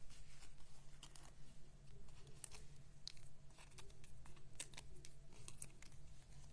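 Hands handling card stock: faint paper rustles and small scattered clicks and crinkles as a layered panel backed with foam adhesive dots is handled and pressed onto a card, over a low steady hum.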